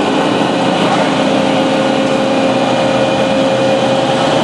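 Maren 203-338-S horizontal baler running in its automatic cycle: a steady, loud machine noise from its electric-driven hydraulic system, with an even hum that holds one pitch throughout.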